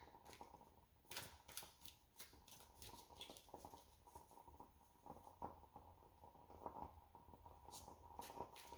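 Near silence with a faint scattering of light clicks and rustles, like reading cards being handled on a table.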